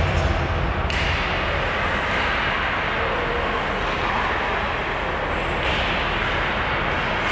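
Steady ice-arena background noise during play, an even hiss with no clear single sound standing out.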